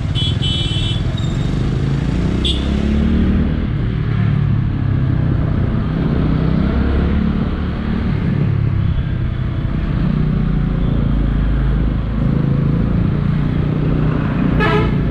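Motorcycle engine running while riding in traffic, its pitch rising and falling with the throttle over steady road noise. A brief high tone sounds near the start and a short sharp sound near the end.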